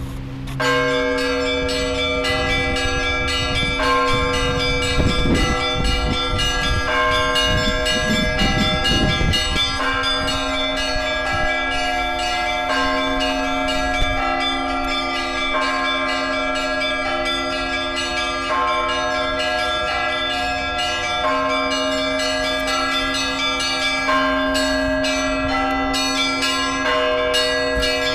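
Russian Orthodox church bells rung after the Divine Liturgy to mark the end of the service. Smaller bells are struck in a fast, continuous pattern over the steady ring of a larger, lower bell.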